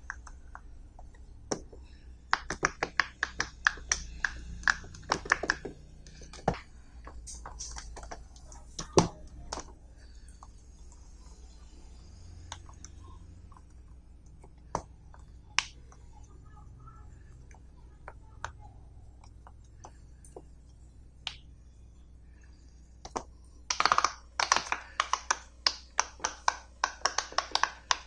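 Silicone pop-it fidget toys pressed with the fingers, the bubbles popping through with sharp little clicks. The pops come in quick runs of many near the start and near the end, with single scattered pops in between.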